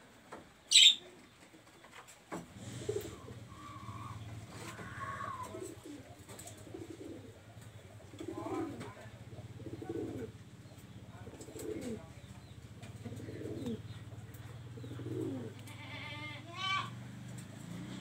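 A caged female oriental magpie-robin gives one loud, sharp whistle about a second in and a quick run of chattering calls near the end. In between, a dove coos over and over, about once every one and a half to two seconds.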